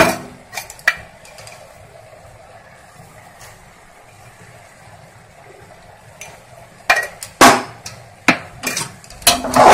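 A faint steady hiss, then from about seven seconds in a run of loud knocks and clatters as a kitchen utensil strikes the aluminium pressure cooker pan.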